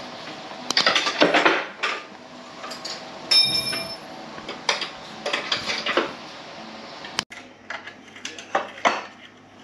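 Metal tools and parts clinking and clattering during workshop reassembly, as separate knocks with a brief ringing metallic note about three seconds in.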